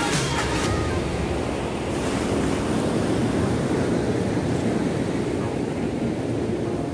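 Steady rush of sea surf on a shore, mixed with wind buffeting the microphone.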